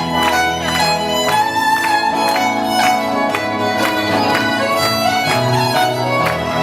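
Recorded music: a violin melody over a steady beat.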